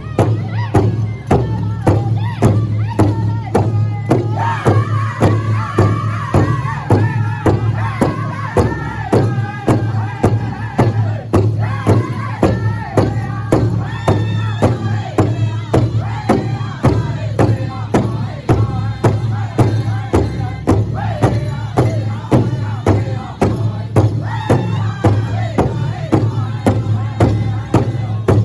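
Loud music with a steady beat about twice a second and heavy bass, with crowd voices over it.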